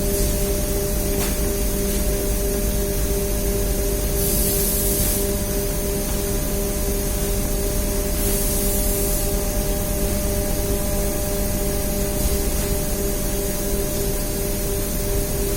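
Steady machinery drone with a constant hum, and two short, high hisses about four and eight seconds in.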